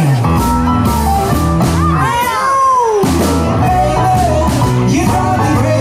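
A rock and roll band playing live with singing. About two seconds in the band briefly drops out while a high sliding wail rises and falls, then the full band comes back in a little under a second later.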